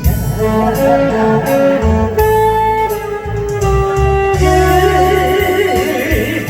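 Instrumental interlude of a Korean pop song's accompaniment, with no singing: a melody of held notes stepping up and down over a steady bass line.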